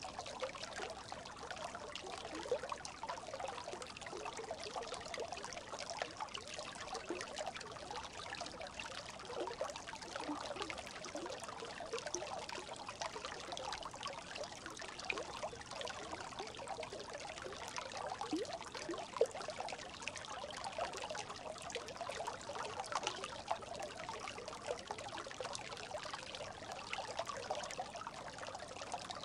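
Brook babbling steadily: water trickling and gurgling, with a constant stream of quick little bubbling notes.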